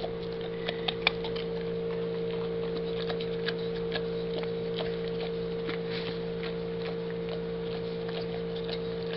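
Dog eating dry kibble from a stainless steel bowl: irregular crunches and clicks of kibble and teeth against the metal, over a steady low hum.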